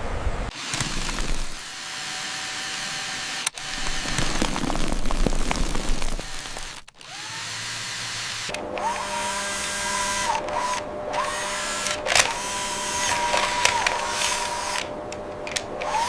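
Machinery noise in several abruptly cut stretches. From about halfway through, a steady whine starts and stops several times, with a few sharp knocks.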